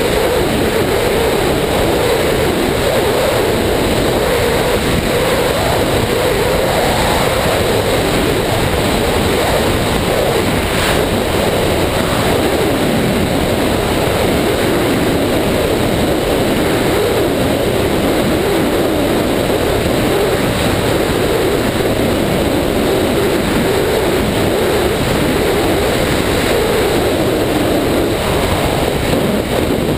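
Ski-Doo snowmobile running at a steady trail speed: a loud, even engine drone with a slight waver in pitch, mixed with the rush of wind over a helmet-mounted camera.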